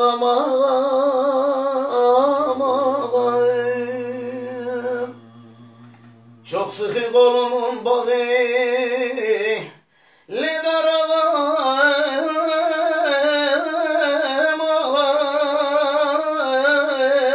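A man singing a Turkish folk song (türkü) unaccompanied, in long held notes with a wavering, ornamented vibrato and no clear words. A low steady hum sounds beneath him for a few seconds early on, and he breaks twice for breath.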